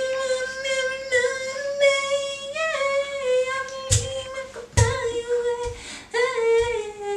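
A woman singing a cappella, holding long drawn-out notes with dramatic slides, her pitch stepping lower near the end. Two short thumps cut in about four and five seconds in.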